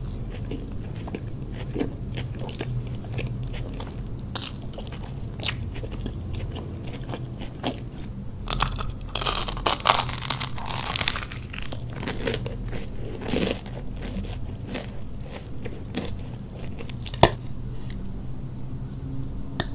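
Close-miked eating sounds: wet chewing of a burger and small bites, then a dense run of loud crunching a little under halfway through as a crisp-crusted chocolate pie is bitten. Near the end a single sharp crack comes as the crust is torn apart.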